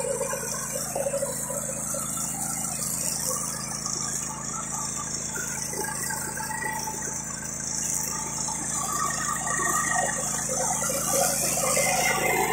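Small engine of a riding lawn mower running steadily as the mower drives over the grass, with a loose rattle.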